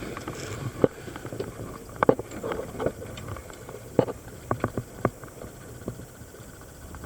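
Underwater sound picked up by a diver's camera: a steady low rumble of water and bubbles, broken by irregular sharp clicks.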